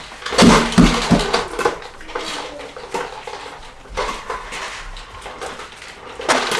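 Hard objects clattering and knocking together: a quick run of loud knocks about half a second in, then scattered lighter clatter, and another burst of knocks near the end.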